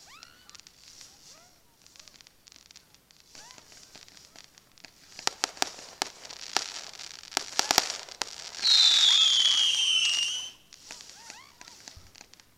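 Fireworks display: after a few quiet seconds with faint short chirps, shells burst with sharp bangs and crackles from about five seconds in. A loud whistling firework follows, lasting under two seconds, its pitch falling slightly, among more crackle.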